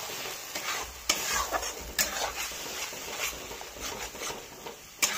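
Metal spatula stirring and scraping ground masala paste and fried onions around an aluminium kadhai, with the sizzle of the paste frying in hot oil and a few sharp clinks of the spatula against the pan.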